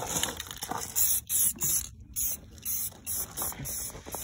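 Aerosol spray-paint can spraying in a rapid series of short hissing bursts.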